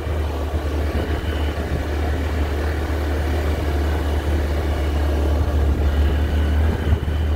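Motorcycle engine running steadily while riding over sand, under a strong, steady low rumble.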